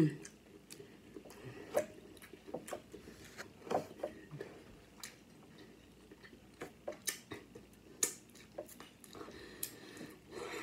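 A person chewing food close to the microphone, with irregular wet mouth clicks and lip smacks scattered throughout.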